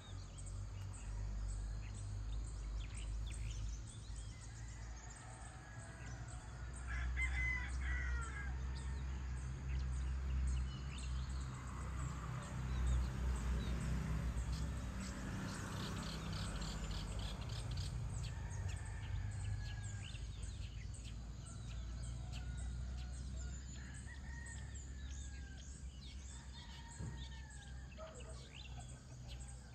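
Birds chirping and calling at dawn, with a rooster crowing around the middle, over a steady low rumble.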